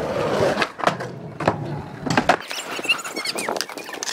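Skateboard wheels rolling on concrete, with sharp clacks of the board striking the ground several times. Faint high squeaks come through in a quieter stretch past the middle.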